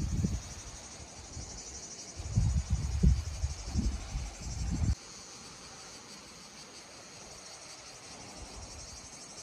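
Steady high-pitched insect chorus with a fine, rapid pulsing. Low gusts of wind buffet the microphone in the first half, then cut off abruptly about five seconds in.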